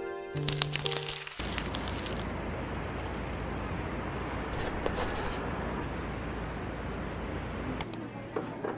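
Soft background music ends about a second in, giving way to a steady hiss of city street ambience with a few scattered clicks.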